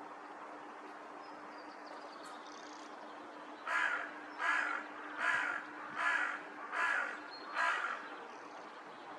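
Hooded crow cawing six times in an even series, about one harsh caw every three-quarters of a second, starting about four seconds in.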